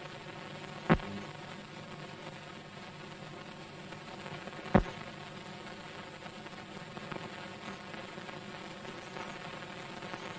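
Steady hiss and hum of an old newsreel film soundtrack, with two sharp clicks, about a second in and again just before the middle.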